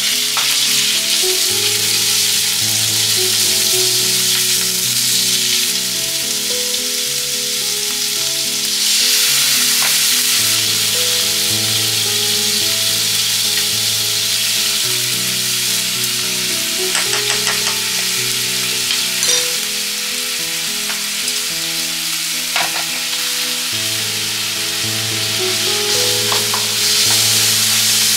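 Food sizzling in a hot frying pan, stirred now and then, with a few light clicks in the second half.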